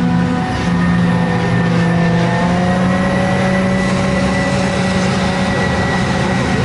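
Heavy diesel forage-harvesting machinery at work in maize: engines running steadily with a strong low hum and a high whine that rises slightly in pitch a couple of seconds in.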